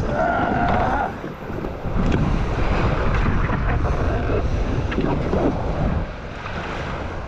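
Wind buffeting the microphone in a steady rumble, over water lapping.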